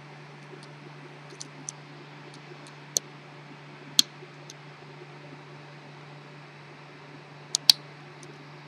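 Small metallic clicks of a lock pick and tension wrench working the pins of an antique Sargent brass padlock, held under heavy tension. The clicks are scattered and irregular, with a sharper one about four seconds in and two close together near the end, over a steady low hum.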